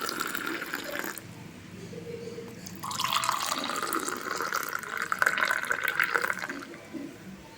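Hot tea being poured into clay kulhad cups, two pours: the first trails off about a second in, then a second pour runs for about four seconds.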